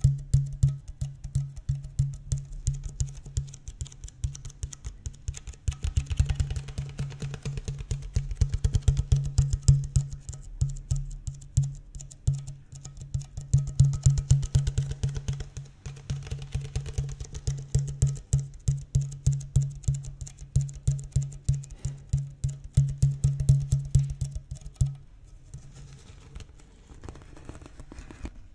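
Rapid fingertip tapping on an empty plastic water bottle held close to the microphones: a quick, continuous run of taps with a deep resonance. The tapping stops about 25 seconds in.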